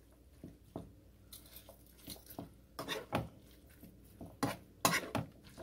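Slotted metal spoon scraping and tapping against a nonstick skillet while stirring raw ground beef with chopped onion and green pepper: soft, irregular scrapes and clicks, with a few sharper knocks in the second half.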